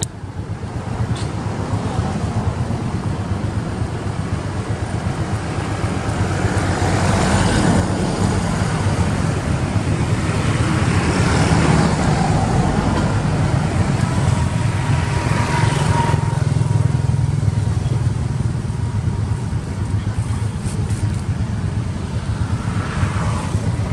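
Passing road traffic: a continuous rumble that swells and fades several times as vehicles go by, with a brief steady whine partway through.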